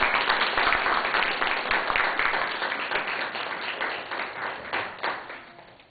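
Audience applauding and clapping, dying away near the end.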